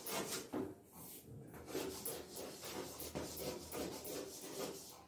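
Chalk scratching on a blackboard as words are written out, in a run of short, irregular strokes with brief pauses between them.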